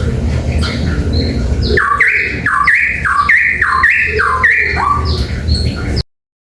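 Cucak pantai Papua songbird calling loudly: a run of about six ringing notes, each sliding down in pitch, roughly two a second, over a steady low background rumble. The sound cuts off suddenly near the end.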